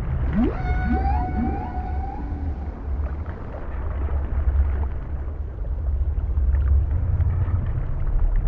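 Whale song over a steady low rumble. A few steep rising calls come about half a second in, followed by a held, slightly wavering tone with overtones lasting about two seconds.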